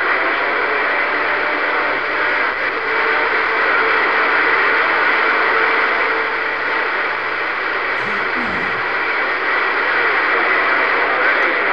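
CB radio receiver static: a steady, loud rushing hiss on the open channel, with a faint low hum and a faint whistle underneath.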